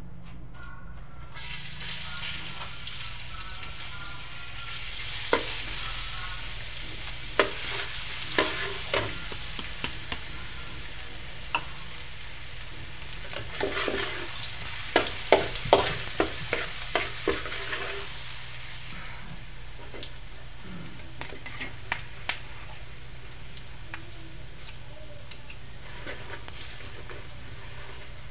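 Minced garlic sizzling as it fries in a metal wok, with a metal spoon clinking and scraping against the pan as it is stirred. The sizzle starts about a second and a half in, the clinks come thickest around the middle, and the sizzle eases off after about two-thirds of the way.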